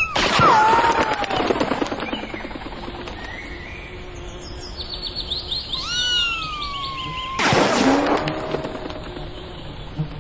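Two imitation gunshots, each a sharp crack with a quick rattle and a long falling ricochet whine: one at the very start and one about seven and a half seconds in. Birds chirp between them.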